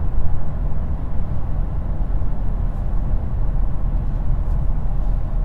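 Steady low road and tyre rumble inside the cabin of a 2020 Mercedes E300e plug-in hybrid sedan while driving, with no distinct engine note.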